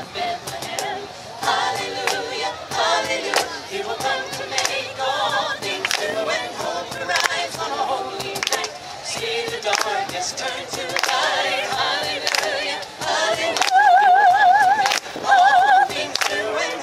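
A small group of carolers singing together. Near the end a woman's voice holds a strongly wavering note, the loudest thing here, then takes it up again briefly.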